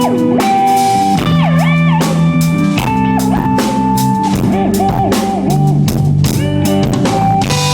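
Live rock band playing: electric guitars with frequent bent and wavering notes over bass and a drum kit keeping a steady beat.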